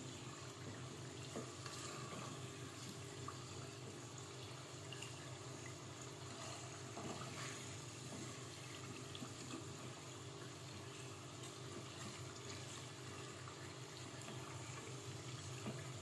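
Rice turon rolls deep-frying in hot oil: a steady sizzle and bubbling, with a few light knocks of a wooden spatula against the pot as the rolls are stirred. Sugar is melting in the oil and coating the rolls.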